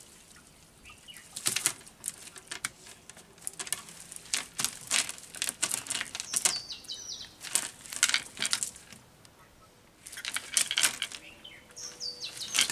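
A cast net being lifted and shaken out over wet concrete: irregular bursts of rustling, wet slapping and rattling from the mesh and its weighted edge, with caught fish flapping in it.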